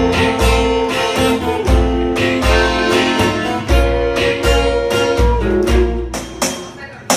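Instrumental song passage: guitar playing over a bass line with a steady beat of low notes.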